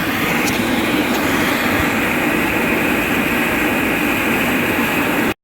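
Air blower running steadily, forcing air into a charcoal fire in a firebrick forge to bring it up to heat. It cuts off abruptly near the end.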